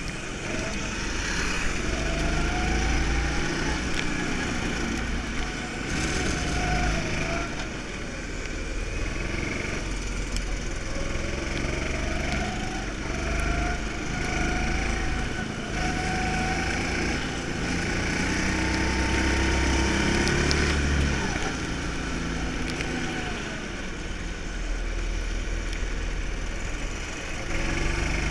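Go-kart engine heard from the driver's seat during a lap, revving up in repeated rising sweeps and dropping back as the kart accelerates and slows for corners.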